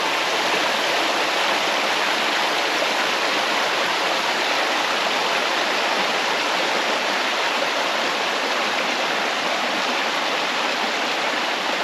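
Bubbly mountain creek running close by: a steady, even rush of water.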